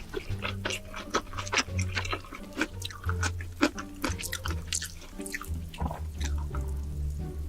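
Close-miked eating sounds: chewing with many quick wet smacks and clicks of the mouth, over background music with a steady bass line.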